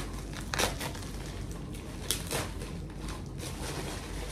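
Plastic packaging wrap crinkling and rustling as a wrapped part is pulled out and unwrapped by hand, louder about half a second in and again about two seconds in.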